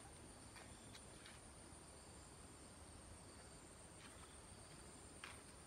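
Faint outdoor ambience after rain: a steady high insect trill, with a few soft ticks of water dripping.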